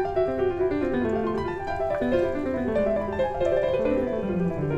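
Background instrumental music: a keyboard melody of short notes, with a low held note coming in near the end.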